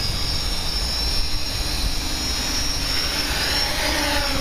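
DJI F550 hexacopter with six brushless motors and three-blade 8x4.5 propellers, flying close by: a steady whirring buzz with a high, even whine from the motors.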